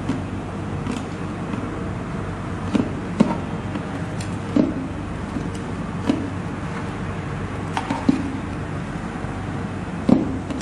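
Handling noise from restringing an Enya ukulele: a handful of short, scattered clicks and light knocks as the string end and fingers touch the bridge and wooden body, over a steady background hum and hiss.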